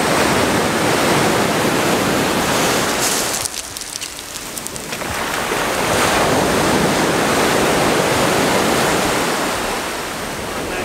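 Sea waves breaking and washing up the beach in a steady rush of surf. It dips briefly about four seconds in, then builds again.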